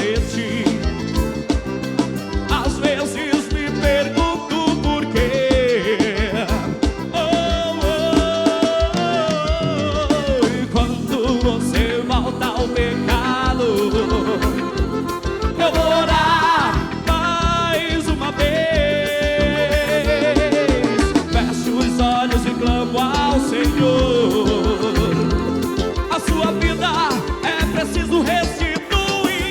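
A forró band playing live: drums and percussion keep a steady dance beat under bass, with accordion, brass and keyboard melody lines wavering over it.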